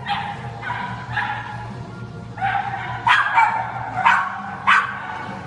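A dog barking repeatedly in high-pitched yaps, with a quick run of sharp barks in the second half.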